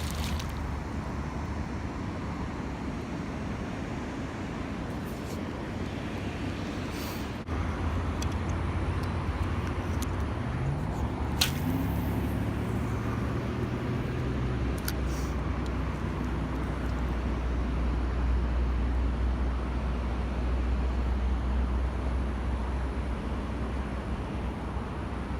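A motor's steady low rumble with background noise. About ten seconds in, its pitch rises briefly, and a sharp click follows.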